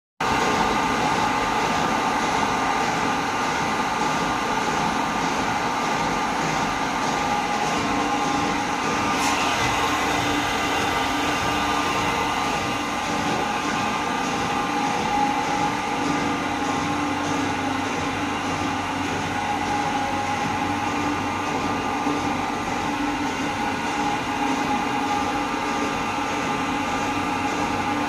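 CNC milling machine cutting metal with an end mill: steady machining noise with several whining tones held over a dense hiss, and one sharp click about nine seconds in.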